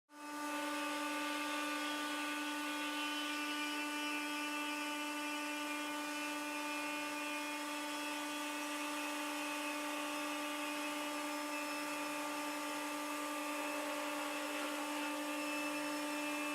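A machine running with a steady whine at one constant pitch, fading in at the start.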